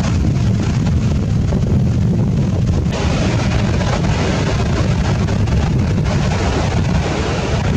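Wind buffeting the microphone, a steady low rumble, over the rush of breaking ocean surf whose hiss grows louder about three seconds in.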